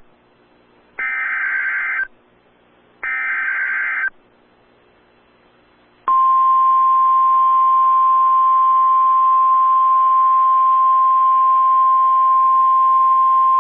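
NOAA Weather Radio emergency alert. First come two one-second bursts of SAME digital header data, about a second apart. After a few seconds of faint radio hiss, the steady single-pitch 1050 Hz warning alarm tone starts about six seconds in and holds. The header encodes the alert, and the tone marks it as a warning-level alert, here a tornado warning.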